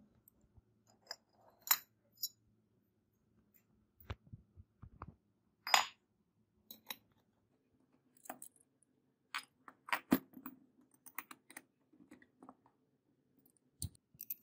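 Metal revolver parts clicking and clinking as they are handled and fitted together, with the metal grip panels pressed onto the gold-plated frame. The clicks come irregularly, the loudest about six seconds in.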